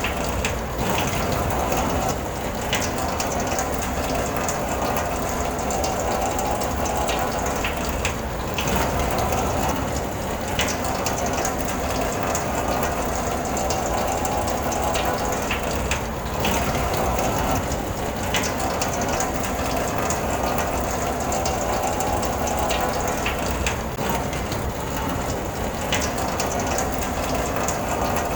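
Rain on a car, heard from inside the cabin: a steady hiss with many small ticks of drops striking the roof and glass. A faint steady hum runs underneath.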